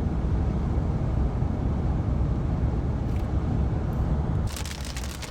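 Steady low road and engine rumble inside a moving car's cabin. About four and a half seconds in, the rumble drops abruptly and a dense, rapid clicking takes over.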